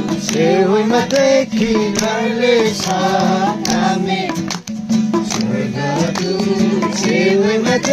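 Voices singing a Nepali Christmas carol, with instrumental accompaniment and sharp percussive strokes.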